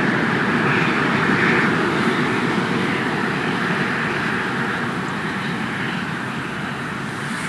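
FS Gr 740 steam locomotive and its train pulling away into the distance: a steady rumble of exhaust and rolling wheels that slowly fades.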